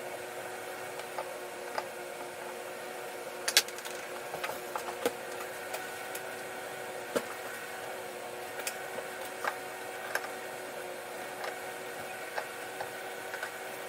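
Scattered sharp plastic clicks and snaps, irregular and a second or more apart, as a softened headlight lens's retaining hooks and edge are pried loose from the housing, over a steady hum.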